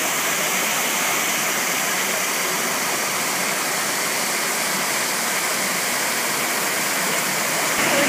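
Wide curtain waterfall of many thin streams spilling over a mossy rock face into a shallow pool: a steady, even rush of falling water.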